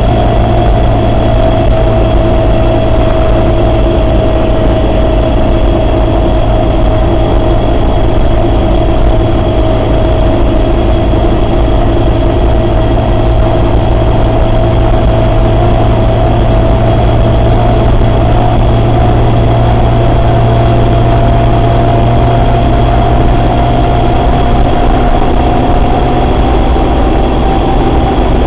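Suzuki Samurai running with a steady drivetrain whine over low engine rumble. The whine holds one pitch, sags slightly, then rises gradually toward the end. It is the strange noise the owner puts down to the transfer case.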